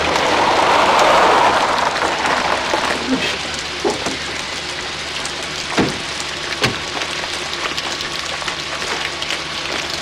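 A car pulls up over a steady hiss, its noise swelling in the first two seconds, then two car doors shut with sharp thumps a little under a second apart, about six seconds in.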